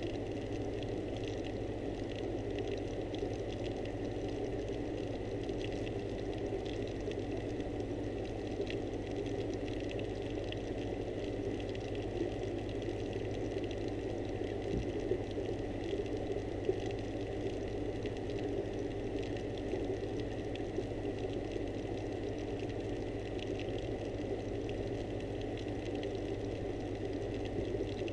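Steady mechanical hum with a thin high whine, heard underwater through the camera housing, typical of a pond pump or filter running continuously.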